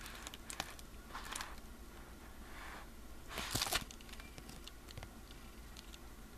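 Paper and packaging crinkling and rustling by hand, with a few light clicks; a louder rustle comes about halfway through.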